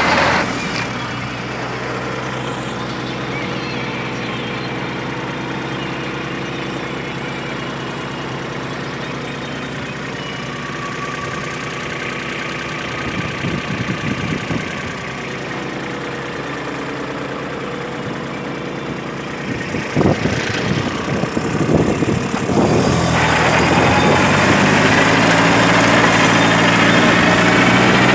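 Kubota 21 hp compact tractor's diesel engine running steadily while the tractor works a rotary tiller through the soil. The engine gets clearly louder and closer for the last few seconds.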